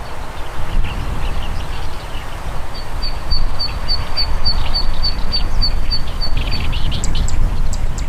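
Zitting cisticola singing its song-flight call: a run of sharp, evenly spaced high "zit" notes, about three a second, starting near the 3-second mark and lasting about four seconds. A few scattered chirps follow near the end, over a steady low rumble.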